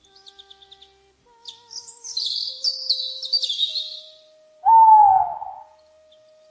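Bird calls: a quick run of high chirps, then a stretch of busy high chirping, then one loud, lower call that falls in pitch, over faint held notes of background music.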